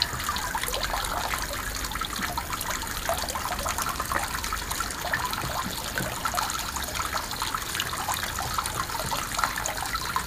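Filtered water from a small pond pump falling and trickling steadily into a garden pond, with scattered small splashes throughout.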